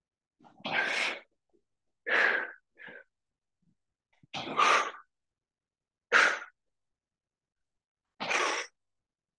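A man's sharp, forceful exhalations, one with each dumbbell high pull, five times at about two-second intervals.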